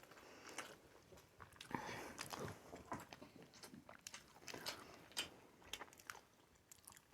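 Faint chewing of sushi, with soft, irregular mouth clicks.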